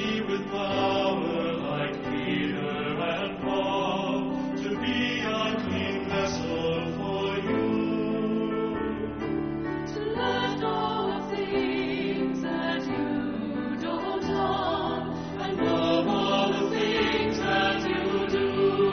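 Background music: a choir singing with sustained, held notes.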